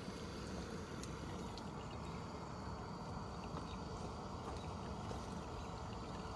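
Campfire burning, with scattered small crackles and pops over a steady low rumble.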